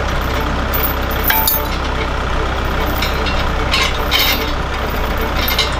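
Kubota compact loader tractor's diesel engine idling steadily, with a few metallic clinks from a tow chain being handled.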